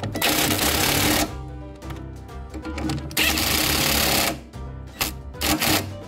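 Cordless impact wrench hammering the bolt of a rear stabilizer bar bushing bracket tight: two runs of about a second each, then three short bursts near the end as the bolt seats.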